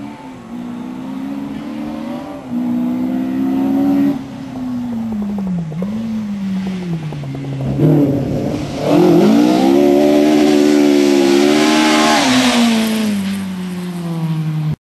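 Rally car engines revving hard and changing gear on a stage, the pitch climbing and dropping. The loudest part, from about nine to twelve seconds in, is a close pass of a classic Ford Escort Mk1 rally car at high revs, its note then falling away before the sound cuts off just before the end.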